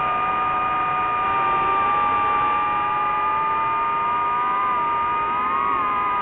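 DJI FPV drone's motors and propellers whining in flight: a steady high hum with a second tone that drifts in pitch and briefly rises and falls near the end.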